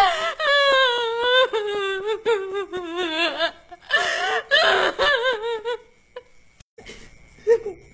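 A woman's hysterical vocal outburst: a long wail that falls in pitch, broken into quick laugh-like pulses, then shorter cries about four seconds in, dying down near the end.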